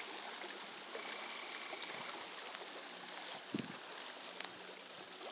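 Rain-swollen, muddy creek flowing steadily with an even rushing sound. A soft thud or two comes about three and a half seconds in.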